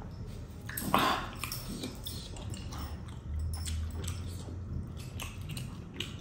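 Close-miked eating and drinking sounds: mouth noises and small wet clicks, with one louder mouth noise about a second in. Then a plastic drink bottle is squeezed and drunk from, with soft squishes.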